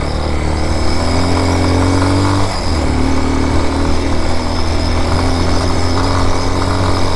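BSR Raven 250's 229cc air-cooled OHV engine running under way, its revs climbing, dropping sharply about two and a half seconds in, then climbing again.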